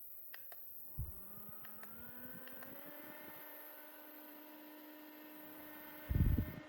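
Two quick clicks, then a mini handheld fan's small electric motor spinning up, its whine rising for about two seconds and settling into a steady whir. Near the end comes a brief, loud low rumble.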